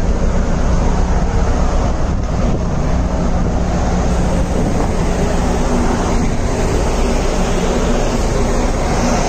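A vehicle engine running steadily, a loud, unchanging low drone.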